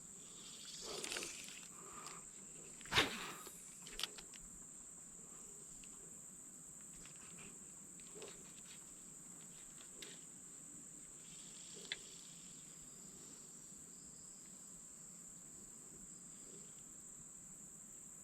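Steady, faint, high-pitched insect trill, with a few soft knocks and rustles in the first few seconds.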